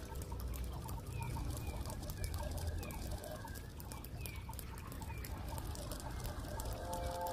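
Short falling bird calls repeating about once a second over a low steady rumble, with faint clicks of keyboard typing.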